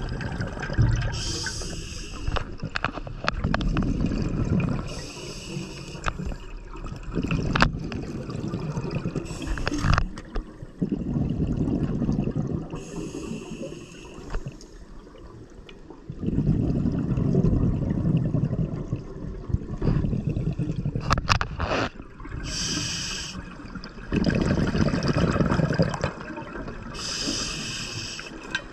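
Scuba diver breathing through an open-circuit regulator, heard underwater: short hissing inhalations alternate with longer low, rumbling bubbling exhalations, several slow breath cycles. A few sharp clicks from the gear come in between.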